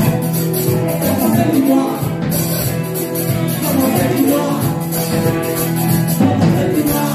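Live band music with singing over a steady, fast beat of drums and percussion.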